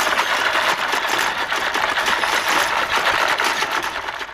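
Bubble wrap popping in a dense, rapid crackle of many pops close together, fading away at the very end.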